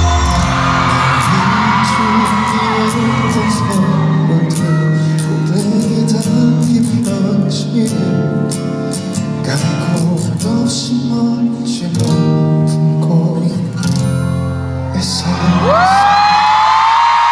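Live pop performance: a male singer's voice over acoustic guitar accompaniment, with a long note that rises and is held near the end.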